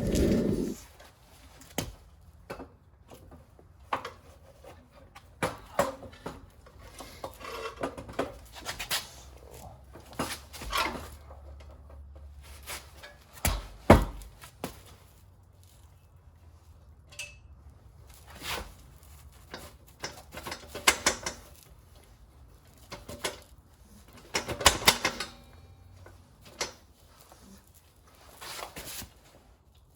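Scattered knocks, clunks and rubbing from hands handling a small engine and its packaging, with one heavy thump about halfway through and a cluster of rattling knocks later on.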